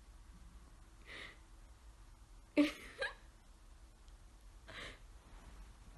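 Four short, breathy sounds close to the microphone, the loudest pair about two and a half and three seconds in, one of them with a brief voiced catch.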